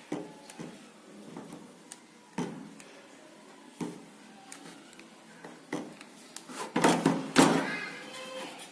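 Irregular small knocks and clatters of hard objects being handled and set down, with a louder cluster of knocks about seven seconds in.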